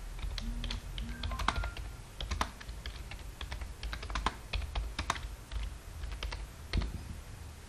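Typing on a computer keyboard: irregular keystrokes, several a second, over a low steady hum.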